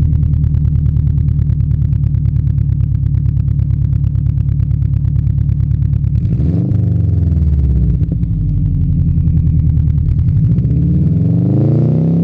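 Subaru Legacy turbo's flat-four engine heard at the exhaust tailpipe, idling steadily. About six seconds in it is revved once, the pitch rising and falling back within about a second and a half, and near the end it begins revving up again.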